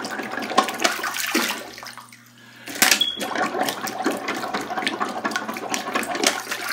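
Water sloshing and splashing in a clogged toilet bowl as a plastic bottle with its bottom cut off is pumped up and down in the drain like a plunger. There is a brief lull about two seconds in.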